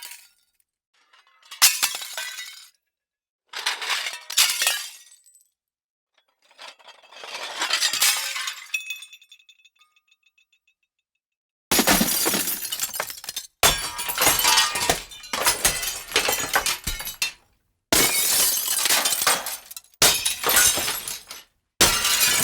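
A string of separate glass-breaking sound effects, glass smashing and shattering with short silences between them. The first few are short; one swells and ends in a brief ringing of glass; past halfway, six longer, denser smashes follow one after another.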